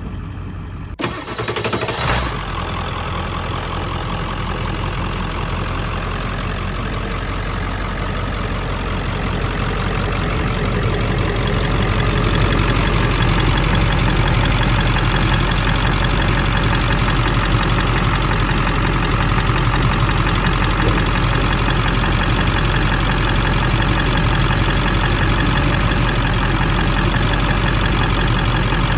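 2000 Ford F-550 Super Duty truck engine idling steadily, heard close up in the open engine bay; it grows louder about ten seconds in.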